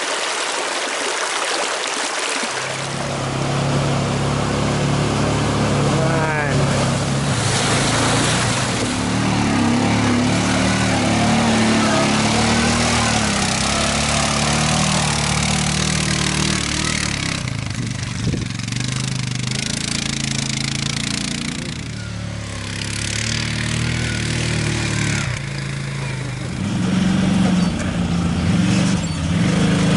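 ATV engine running under load as the quad bike drives off over rough, muddy ground, its pitch rising and falling with the throttle. The engine sound comes in about two and a half seconds in.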